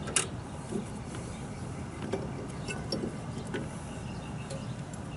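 Light handling noise as hands work a drive belt onto a belt-drive clutch basket: one sharp click just after the start, then a few faint ticks over a low steady hum.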